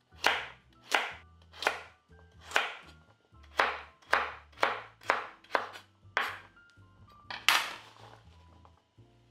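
Chef's knife dicing a carrot on a bamboo cutting board: steady chopping strokes, about two a second, with one louder, longer stroke near the end.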